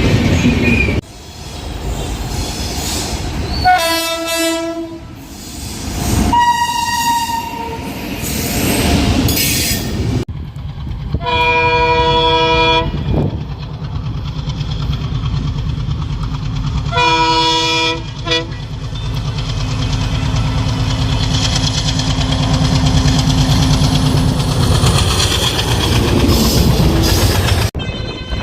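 Indian Railways locomotive horns sounding four times, each a chord of several steady tones; the longest horn sounds about twelve seconds in, and the last ends with a short extra toot. Between horns a train rumbles past with a fast rhythmic wheel clatter, and the sound changes abruptly a few times as clips are cut together.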